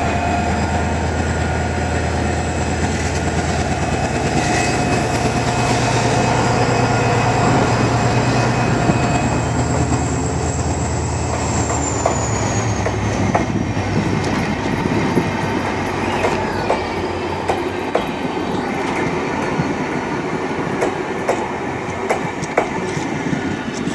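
A GT22 diesel-electric locomotive hauling a train into a station: its engine runs with a steady low hum, then fades as the train slows. About halfway through, a high squeal slides down in pitch. In the second half, irregular clicks and knocks come from the wheels and cars over the rails.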